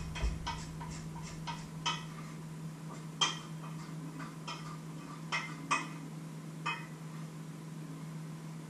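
Knife chopping on a wooden cutting board: a quick run of chops in the first two seconds, then a few single knocks. A steady low hum runs underneath.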